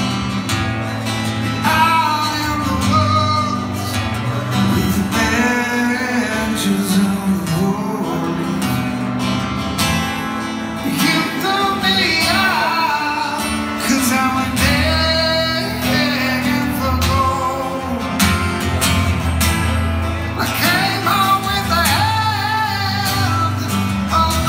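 Live acoustic rock song: a man singing over acoustic guitar.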